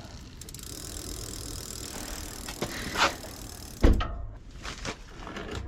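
Mountain bike drivetrain turning, the freshly oiled chain running over the gears without squeaking. There is a thump just before four seconds in, then a few scattered clicks.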